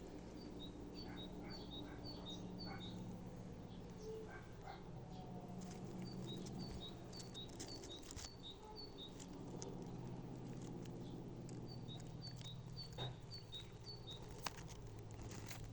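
A songbird singing outdoors: three bouts of a quickly repeated high two-note phrase, each bout about three seconds long, over a steady low hum.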